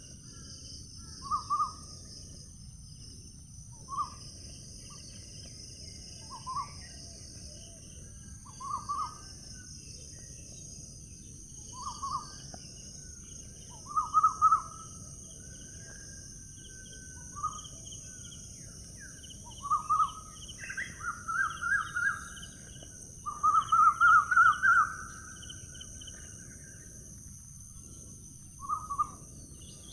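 A songbird calling in short, separate phrases every couple of seconds, then a longer, louder run of quick repeated notes about two-thirds of the way through. Behind it is a steady high hiss and a low, even background noise.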